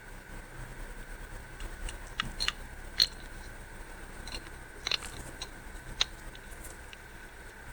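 A few sharp clicks and taps of the small metal parts of a disassembled fingerprint padlock being handled. The loudest comes about three seconds in, and a faint steady high whine runs underneath.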